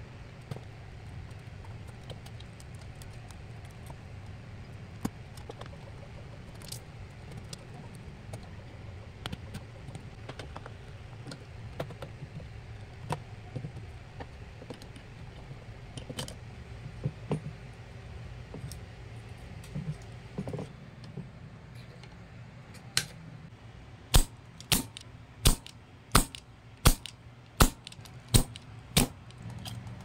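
Small clicks and rustles of hands unplugging wire connectors and handling the plastic chassis and circuit boards inside a direct-drive turntable, over a steady low hum. Near the end comes a quick run of about nine sharp clicks, a little under a second apart.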